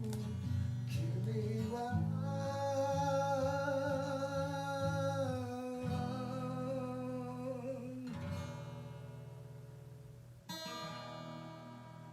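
Singing with acoustic guitar accompaniment: a long, slightly wavering held vocal note over strummed chords ends about eight seconds in. Then a single guitar chord is strummed about ten and a half seconds in and left to ring out and fade.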